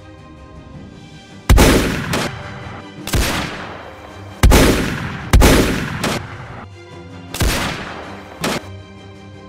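A string of rifle shots: five loud shots a second or more apart, each trailing off in a long echo, with a few fainter cracks between them. Background music plays under the shots.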